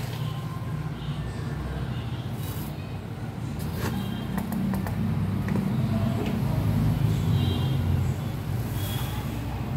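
Gas burner running under a steel saucepan of milk tea, a steady low rumble that grows louder as the milk comes up to the boil and froths. A short tap about four seconds in.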